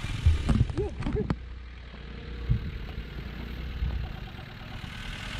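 An off-road vehicle's engine running at low revs, a steady low rumble. Short shouted voices come in the first second or so, and there is a single knock about two and a half seconds in.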